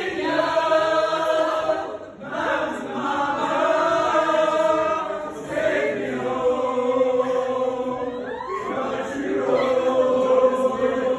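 A group of voices singing together a cappella in a stairwell, holding long notes in phrases of a few seconds with short breaks between.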